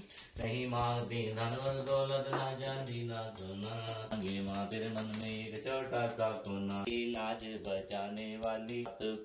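Hindu devotional song (aarti or bhajan) playing: a voice singing with sustained accompaniment over a quick, steady beat.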